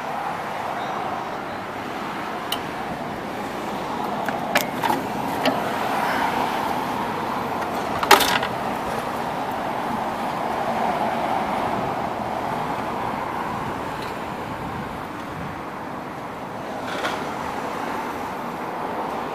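19 HP Kawasaki engine of a walk-behind zero-turn lawn mower running steadily, with a few sharp clicks over it, the loudest about eight seconds in.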